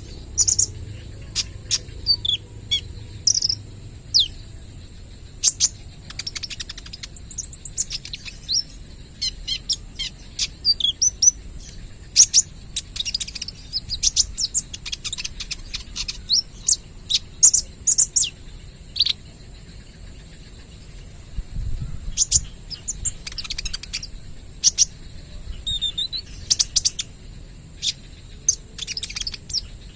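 A young male kolibri ninja sunbird singing: bursts of rapid, sharp high-pitched chirps and quick trills in irregular runs, the fast 'tembakan' notes that keepers prize.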